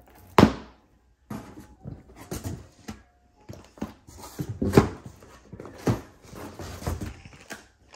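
Cardboard diamond painting kit boxes being handled and set down on a stack: a run of knocks and rustles, the loudest about half a second in.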